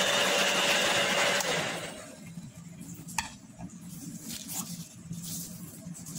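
Oster hair dryer blowing over a paper towel to dry a water spot, switched off about a second and a half in, its noise dying away within half a second. Then a few light rustles and a sharp click as the paper towels and dryer are handled.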